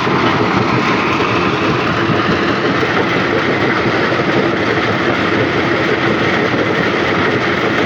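Stone crusher machine running, crushing rock with a loud, steady, dense rattle.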